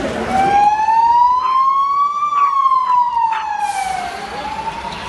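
Emergency vehicle siren wailing: one slow rise and fall in pitch over about four seconds, beginning to rise again near the end.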